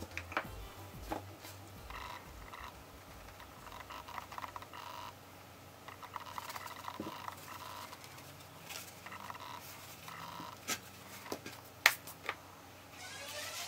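Light handling sounds as flour is dusted into a cloth-lined proofing basket with a spoon and the hands are brushed off: a few scattered soft taps and clicks, the sharpest one near the end.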